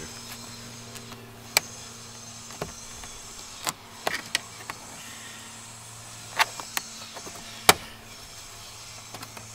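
Sharp plastic clicks and snaps of a small flathead screwdriver prying at the plastic trim cap behind a Nissan Frontier's interior door handle, about eight irregular clicks with the loudest about three quarters of the way in, over a steady low hum.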